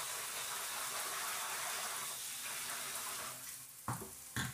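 Kitchen tap running as rice is rinsed under it, the water stopping about three seconds in. Two sharp knocks follow near the end.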